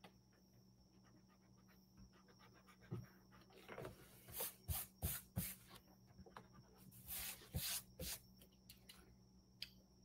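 Faint rubbing of a mechanical pencil's eraser on sketchbook paper: a string of short strokes from about three to eight seconds in, lightening graphite lines before watercolour goes on.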